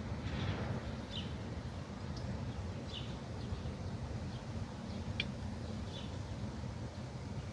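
Small birds giving short chirps about once a second, over a steady low outdoor rumble.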